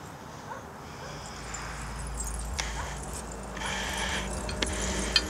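Opening of the soundtrack music fading in: a low drone swells and a steady low tone sets in, with scattered faint chirps and a few sharp clicks.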